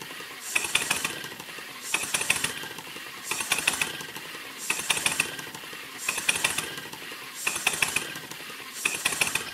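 Chiltern miniature steam engine running in surges. A short burst of rapid clattering chuffs comes about every one and a half seconds, with quieter running between. This is the speed oscillating as its flyball governor hunts, opening and closing the steam valve.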